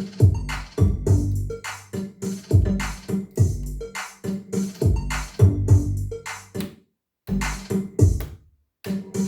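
Electronic music with a drum-machine beat, played through an Accuphase E-305 integrated amplifier and Monitor Audio floor-standing speakers. The music stops for a moment twice in the second half.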